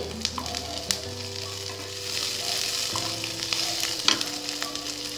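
Onion, capsicum and tomato pieces sizzling in hot oil in a non-stick kadai, stirred with a wooden spatula, with a few sharp knocks of the spatula against the pan.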